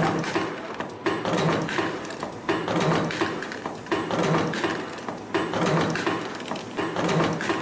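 CNC spring-forming machine running in production, turning out torsion springs in a steady cycle about every 1.4 seconds. Each cycle starts with a sharp click and runs into servo whirring and tool clatter as the wire is fed, coiled, bent and cut.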